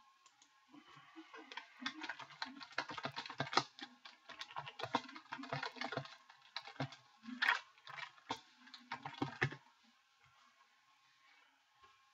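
Typing on a computer keyboard: quick runs of key clicks, starting about a second in and stopping a little over two seconds before the end.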